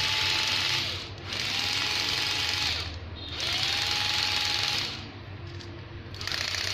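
National EZ503 cordless drill-driver's motor triggered in short runs, three and then a fourth starting near the end, each spinning up with a rising whine and then holding a steady pitch. During the last run a rapid ticking joins in, typical of its mechanical slip clutch slipping.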